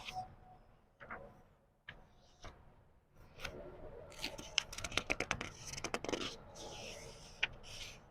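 Book pages being turned slowly by hand: paper rustling and scraping, with a quick run of crisp crackles around the middle and a soft swish of a page sweeping over near the end.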